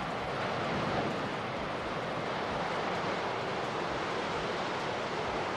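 Steady rush of water, from seawater breaking through the walls into a collapsing tin-mine pit.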